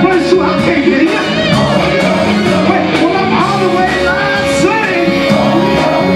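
A live funk band playing, with drums, electric bass, electric guitar and keyboards under a lead singer's voice, over a steady beat.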